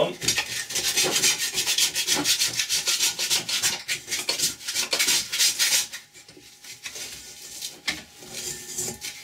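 Hand scraper rubbing over the rusty metal platter of an old turntable in quick back-and-forth strokes, easing off to fainter, scattered strokes about six seconds in.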